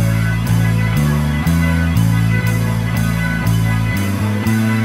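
Instrumental background music led by guitar, with a steady beat of about two beats a second and a bass line that changes every second or so.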